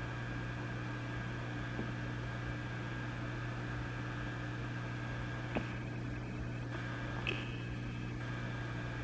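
Vintage tube amplifier idling with a steady low hum and hiss. Two brief clicks come a little past halfway, under two seconds apart.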